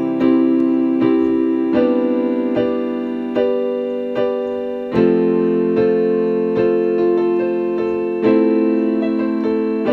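Solo keyboard with a piano sound playing sustained chords in an instrumental passage without vocals, the chords restruck every second or so and changing about a third and halfway through.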